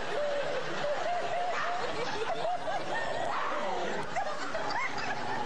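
People laughing and giggling in short bursts.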